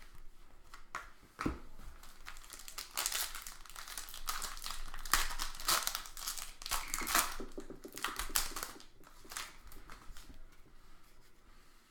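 Trading card pack wrappers crinkling and rustling in irregular bursts as packs are torn open and the cards handled.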